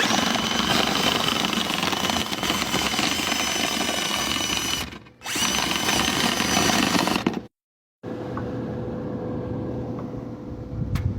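Power drill running steadily with a high motor whine, dropping out briefly about five seconds in and starting again. After a short break, a quieter, steady motor hum runs on.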